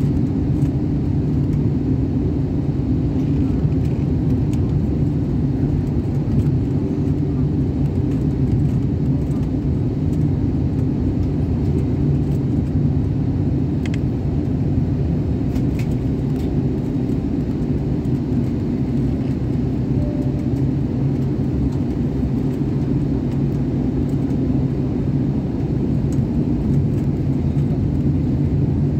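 Steady low drone of an airliner in flight, heard inside the passenger cabin: jet engine and airflow noise, even throughout.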